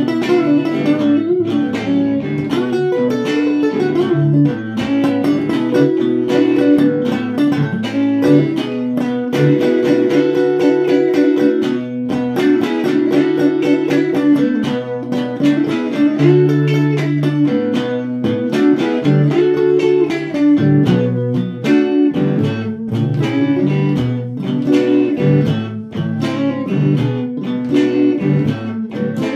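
Two guitars jamming together: a continuous run of plucked notes over a moving low bass part.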